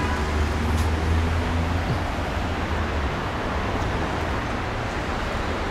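Street traffic: a vehicle engine's low hum that fades out about two seconds in, over a steady wash of road noise.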